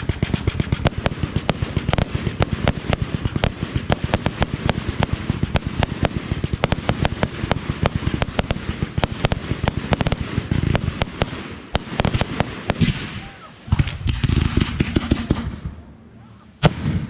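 Fireworks going off in a rapid barrage of sharp bangs, several a second, for about twelve seconds, then a short denser cluster and a single bang near the end.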